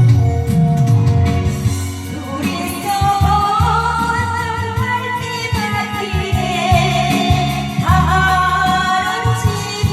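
A Korean ballad sung over an instrumental backing track. The voice comes in about two and a half seconds in, holding long notes with vibrato.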